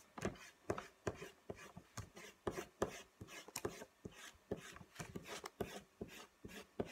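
Rubber eraser rubbing pencil marks off thin coloured card in quiet, short, irregular strokes, about two to three a second.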